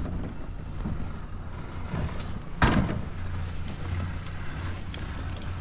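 Rope-rescue gear as a toboggan and its rack are lowered from a chairlift: rope running through a pulley with a few small clicks, and one loud clunk about halfway through, over a steady low rumble.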